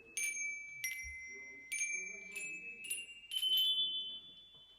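Small Christmas-cracker handbells rung one at a time in turn, about seven rings, each bell a different note with a clear ringing decay; the notes climb higher toward the end.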